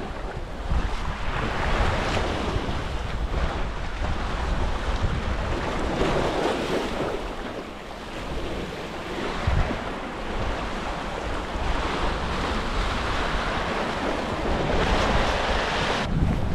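Sea surf washing against coastal rocks, swelling and easing every few seconds, with wind buffeting the microphone in a low rumble.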